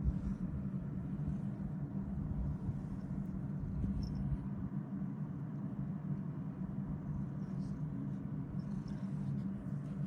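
Ragdoll cat purring steadily, a continuous low fluttering rumble.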